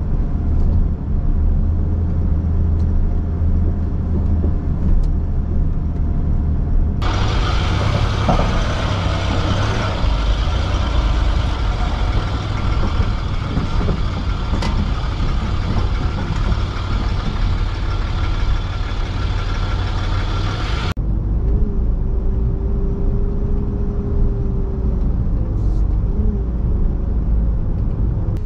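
A 4x4 driving: a steady low engine and tyre rumble. A louder hiss of wind and road noise starts abruptly about seven seconds in and stops just as abruptly about fourteen seconds later.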